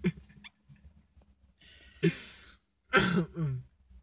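A young man's voice making short sounds that are not speech: a sudden cough-like burst about two seconds in, then a louder sound about a second later whose pitch falls.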